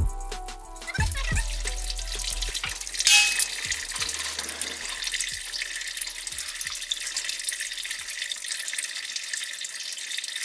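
Automatic transmission fluid pouring out of the loosened, tilted oil pan of a 6L80 transmission and splashing into a drain pan. The flow is steady, with a louder surge about three seconds in.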